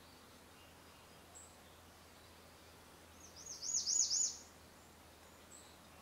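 A bird sings one short phrase of about six quick, high whistled notes, each rising then falling, growing louder, about three seconds in. A faint single high note comes shortly before it and another near the end, over a faint steady hiss.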